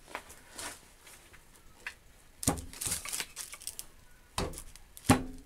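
Small cast-iron hand-lever bench guillotine (metal shear) being handled and worked: a few faint clicks, then three sharp metallic knocks, about two and a half, four and a half and five seconds in.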